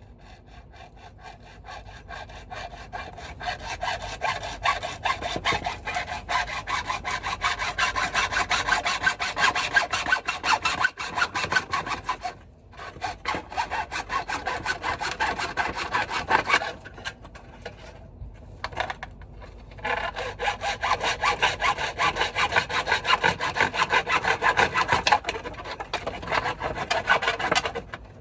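Hand-sawing through a length of gutter with quick back-and-forth strokes, pausing briefly about twelve seconds in and for a few seconds past the middle before sawing on.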